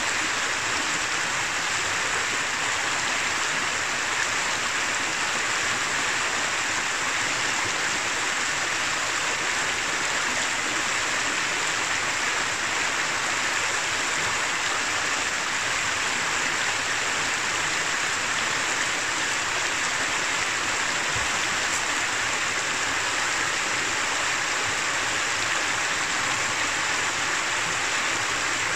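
Shallow mountain river running over rocks and stones: a steady rush of flowing water with no breaks.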